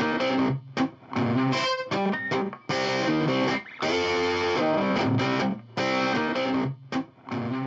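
Outro music led by guitar, played in short stop-start phrases that break off abruptly and start again about once a second.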